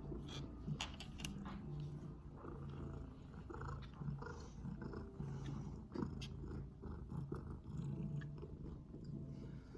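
Domestic cat purring close to the microphone in repeated waves, with a few scattered light clicks.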